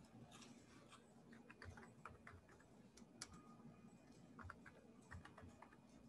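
Faint typing on a computer keyboard: scattered keystroke clicks in short runs, with a few pauses between them.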